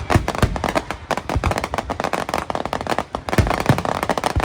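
Fireworks display: a dense, rapid crackle of many small bursts, broken by deep booms from shells bursting about six times.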